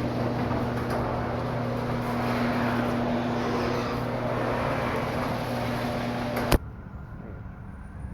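Steady mechanical hum with a low droning tone, cut off by a sharp click about six and a half seconds in, after which it is much quieter.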